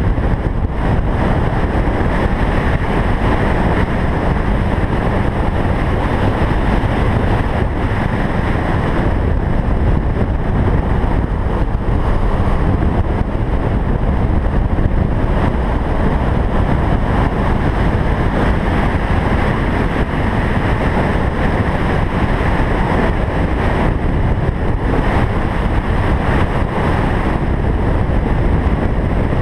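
Loud, steady wind rush buffeting the microphone at road speed, over the running parallel-twin engine of a 2008 Kawasaki Ninja 500R motorcycle.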